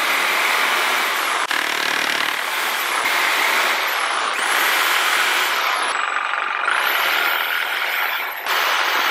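Corded reciprocating saw cutting through wooden strips, making several cuts in a row. Between cuts the motor's high whine drops off and climbs back as the trigger is eased and squeezed again.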